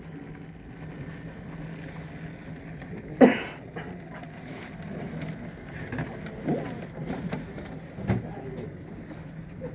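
Model train running on an exhibition layout, with a steady low hum throughout. A sharp knock about three seconds in is the loudest sound, and softer clunks follow later.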